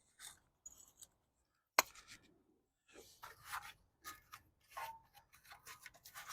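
Faint scattered clicks and scraping as tools and brake parts are handled, with one sharp click about two seconds in and a run of small rubbing and scraping noises in the second half.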